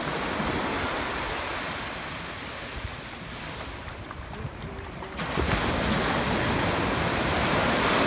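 Small ocean waves breaking and washing over the shallows, with a louder wave surging in from about five seconds in. Wind rumbles on the microphone.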